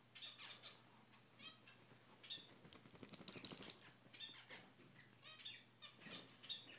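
Small poodles play-wrestling, giving short, high-pitched whines and squeaks in quick bursts, with fur and bedding rustling, busiest about halfway through.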